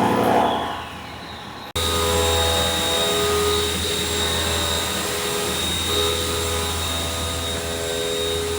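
Haas VF-8 vertical machining center running under power. A shifting machine sound fades over the first second or so and cuts off sharply. It is followed by a steady electric hum with a high whine and several steady tones, some of which drop out briefly midway.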